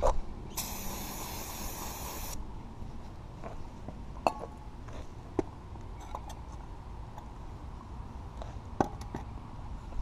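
An aerosol cleaner can hissing in one burst of about two seconds onto small-engine parts, followed by three or four short sharp knocks of metal parts being handled.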